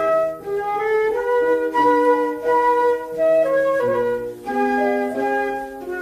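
Instrumental break in a children's song: a flute-like melody plays over accompanying held notes.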